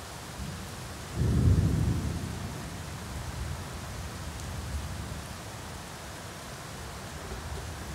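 Thunder rumbling: a low roll that starts suddenly about a second in, is loudest briefly, then dies away over several seconds. It is the thunder of a flash whose seconds are being counted to judge the storm's distance. A steady hiss of rain sounds throughout.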